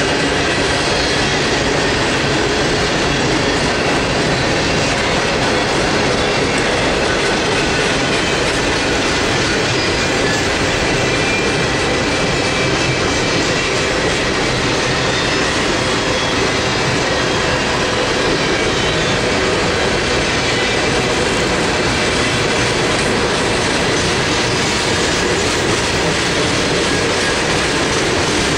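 Norfolk Southern coal train's steel hopper cars rolling past close by: a steady, continuous rumble and clatter of wheels on rail.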